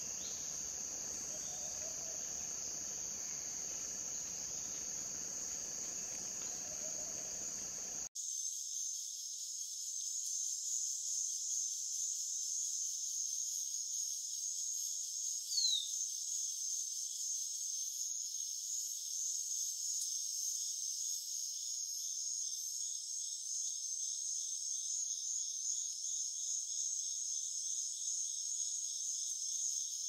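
Steady high-pitched chorus of forest insects, buzzing continuously and turning into a fast pulsing trill after the low background hiss cuts out about a quarter of the way in. Near the middle a single short falling whistle note stands out.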